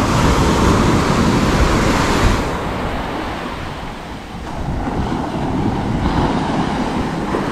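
Small surf breaking and washing up a sandy beach, driven by a stiff wind, with wind buffeting the microphone. The wash is loudest in the first two seconds, eases off around four seconds in, then builds again.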